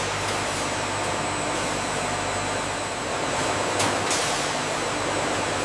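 Steady machinery noise: an even hiss with a low hum underneath.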